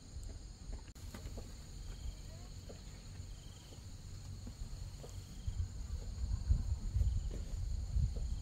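Steady high buzzing of an insect chorus. Low rustling and bumping grows louder in the second half.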